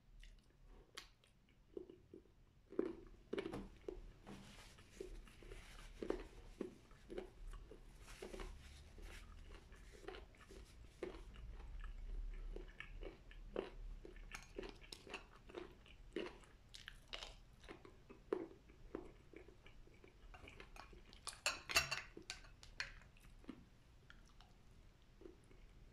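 Close-up chewing of a chicken, rice and mixed-vegetable meal: soft, wet mouth clicks and smacks repeating a few times a second, with a short spell of louder, crunchier clicks about 22 seconds in.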